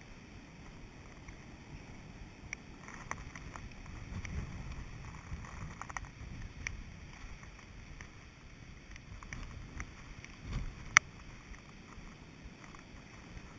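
Low rumble of wind buffeting a GoPro, with the surf of a storm-driven sea behind it, swelling about four seconds in and again near ten. Scattered light clicks, with one sharp click just before eleven seconds.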